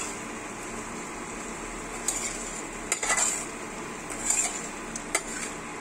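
A metal spatula scrapes and clinks against the side of a metal pot while a thick mushroom and potato curry is stirred. There are four short scrapes about a second apart, starting about two seconds in, over a faint steady hiss.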